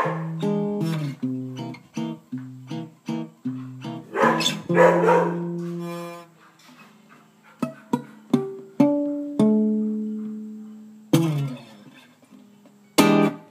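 Acoustic guitar music: a run of quick plucked notes, then slower single notes left to ring, with strummed chords near the end.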